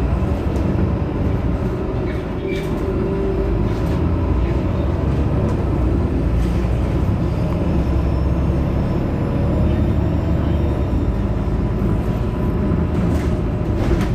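Heuliez GX 327 city bus standing at a stop with its engine idling: a steady low rumble, with a few light clicks on top.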